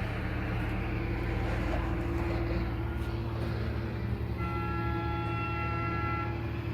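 Construction machinery engines running with a steady low hum. About four and a half seconds in, a steady pitched tone sounds for about two seconds.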